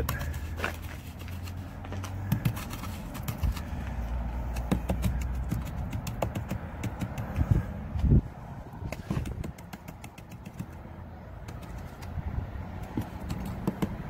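Light, irregular knocks and taps, the strongest a pair about seven and a half and eight seconds in, over a low steady hum that fades out about five seconds in.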